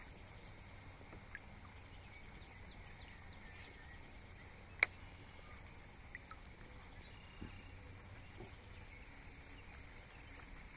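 Quiet outdoor ambience with a faint, steady high insect hum. A single sharp click about halfway through is the loudest sound, with a few fainter ticks around it.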